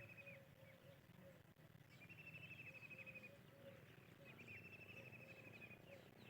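Bird calls: a rapid trill, each about a second long, repeated about every two seconds, over a run of short, lower, softer notes.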